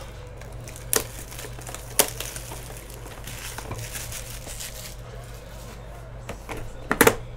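Plastic shrink-wrap crinkling as it is handled and pulled off a sealed trading-card hobby box, with a few sharp clicks and taps of the cardboard box, the loudest near the end. A steady low electrical hum runs underneath.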